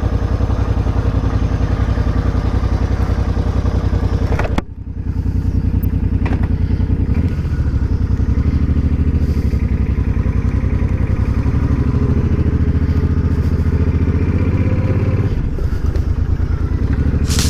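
Motorcycle engine idling steadily, with a brief dip about four and a half seconds in, then pulling away slowly at low revs.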